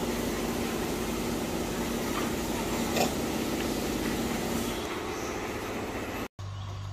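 A steady mechanical hum, with a few faint short chirps over it. It cuts out abruptly near the end, and a deeper steady hum follows.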